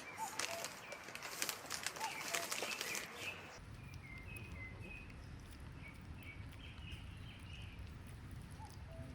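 Small birds chirping in short repeated notes. For the first three seconds or so there is a busy patter of clicks and rustling. Then the background switches abruptly to a low steady rumble while the chirping goes on.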